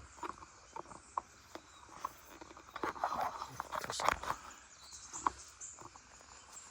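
A hiker's footsteps on a dry trail: irregular crunches and scuffs, busiest around three to four seconds in.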